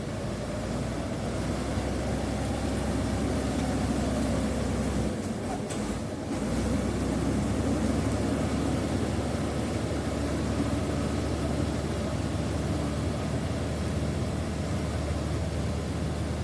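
Komatsu D85E-SS bulldozer's diesel engine running steadily while working, with a brief dip in its sound about six seconds in.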